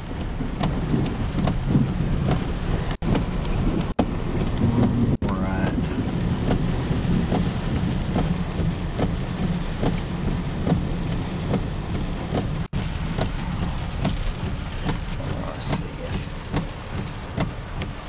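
Heavy rain pouring on a car's roof and windshield, heard from inside the cabin: a steady, loud wash with a low rumble underneath. The sound cuts out for an instant a few times.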